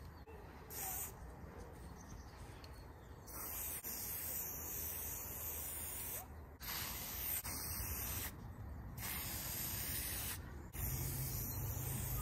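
Aerosol spray-paint can hissing in a series of bursts of about one to two seconds each, with short pauses between, as outline strokes are sprayed onto a wall.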